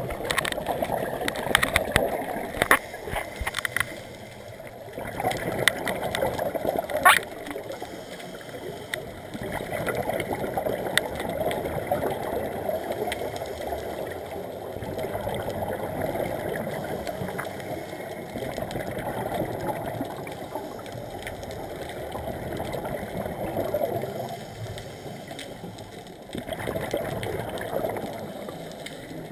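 Underwater scuba breathing: a diver's exhaled regulator bubbles gurgling in rushes every few seconds, with scattered sharp clicks, the loudest about seven seconds in.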